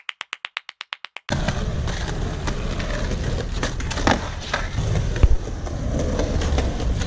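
Skateboard wheels rolling on concrete pavement, with the sharp pop and clack of a flip trick about four seconds in and the board slapping down a moment later. A quick run of about a dozen clicks fills the first second or so.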